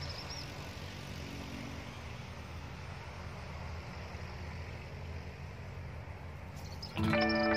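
A steady low rumble of outdoor background noise with no clear pitch. Background music starts abruptly about seven seconds in.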